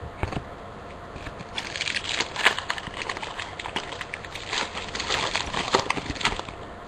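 Trading-card pack wrapper being torn open and crinkled while the cards are handled: a dense, irregular run of crackles and clicks from about a second and a half in until near the end.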